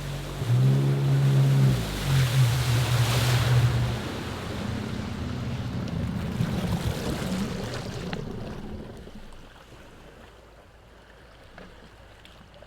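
Jet ski engine running at a steady pitch, revving up about half a second in. After about four seconds the engine note drops away, leaving the hiss of water wash, which fades out by about nine seconds.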